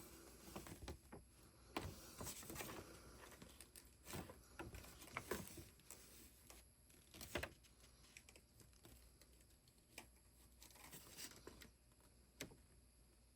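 Faint rustles and light taps of a paper instruction manual being handled and its pages turned, more frequent in the first half.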